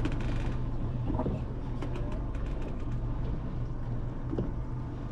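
Boat engine idling with a steady low hum, over water and wind noise.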